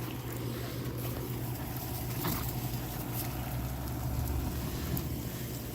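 A steady low mechanical hum, like a motor running, with a few faint ticks over it.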